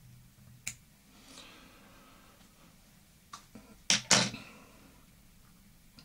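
Small scissors snipping off the tying thread at the head of a finished fly after the finishing knot, with sharp clicks: one under a second in and a louder pair close together about four seconds in.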